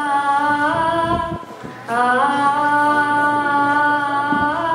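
Wordless singing: long held 'ah' notes, each sliding up into the next pitch, with a short break about a second and a half in.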